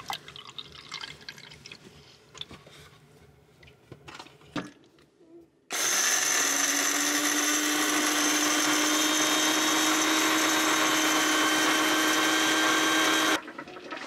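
Water trickles faintly from a plastic bottle into a grind-and-brew coffee maker, with a few soft clicks. About six seconds in, the machine's built-in blade grinder starts whirring loudly on whole coffee beans. It runs steadily for about eight seconds and cuts off abruptly.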